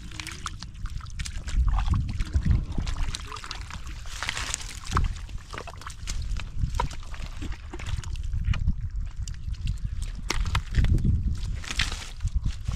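Hands squelching and sloshing through shallow mud and water while groping for fish, with irregular wet splashes and small clicks.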